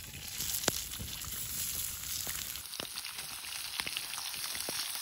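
Spice-rubbed whitefish fillets sizzling as they go into hot oil in a frying pan over a campfire: a steady hiss with scattered sharp pops.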